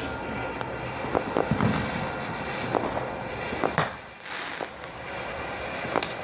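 Fireworks going off: scattered sharp pops and bangs at irregular intervals over a steady background hiss, with a brief hiss about two-thirds of the way through.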